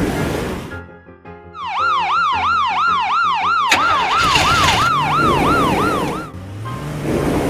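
Toy police car's electronic siren sounding a fast yelp, a tone sweeping up and down about three to four times a second. A sharp click comes partway through, and the siren stops shortly before the end.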